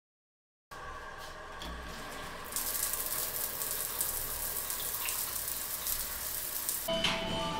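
A shower running, its water hissing steadily onto a tiled floor after a brief silence; the spray grows louder and brighter about two and a half seconds in. Music comes in near the end.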